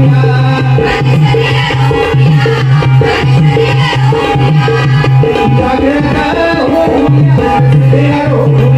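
Live bharud, a Marathi folk song: a man and a chorus of women singing into microphones, with hand-drum accompaniment.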